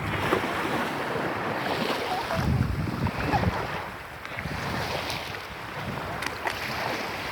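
Waves washing onto a sandy beach, with wind buffeting the microphone; the wind rumble is strongest about two and a half to three and a half seconds in.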